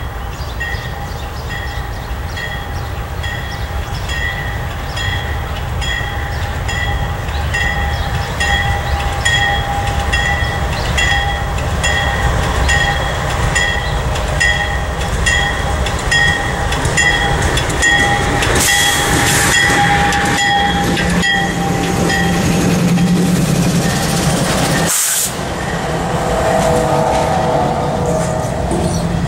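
Grade-crossing bell ringing in steady, even strokes while a CSX freight led by GE C40-8 and AC4400CW diesel locomotives approaches and passes, its rumble growing louder. Near the end the locomotives have gone by and freight cars are rolling past.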